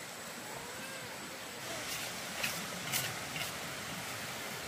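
Four sharp taps or knocks about half a second apart, the middle two loudest, over a steady background hiss.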